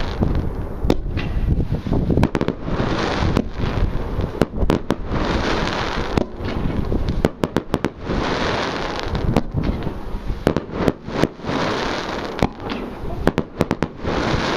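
Mars Pyrotechnics Severance 50-shot firework barrage firing: a steady run of sharp bangs as shots launch and break, with dense crackling from the bursts that swells and fades every couple of seconds.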